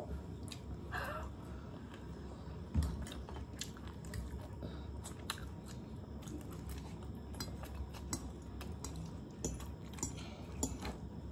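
Forks clicking and scraping on plates of chow mein, with close-up chewing of the noodles, and a single dull knock about three seconds in.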